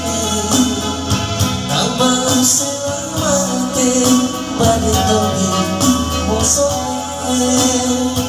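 A man singing into a microphone while playing an electronic keyboard, with held bass notes and a steady beat underneath.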